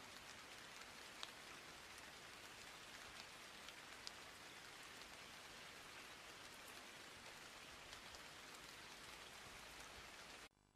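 Near silence: a faint, steady hiss with a few scattered clicks, which cuts off suddenly near the end.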